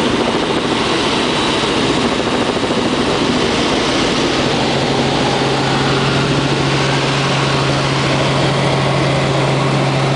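Helicopter in flight heard from inside the cockpit: a steady, loud drone of engine and rotors, with a steady low hum coming up strongly about halfway through.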